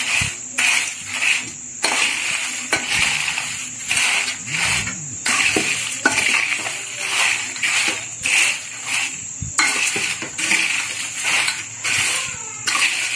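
Crisp, dry fried corn-flake chivda being tossed and stirred in a pan, a rustling crunch in repeated strokes about twice a second, with light clinks against the pan.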